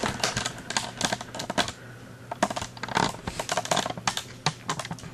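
Irregular quick clicks and taps of handling: a boxed action figure in plastic window packaging being shifted about on a satin cloth.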